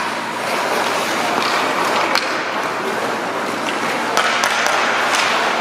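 Ice hockey rink during play: a steady hiss of skates and arena crowd, with several sharp clacks of sticks and puck.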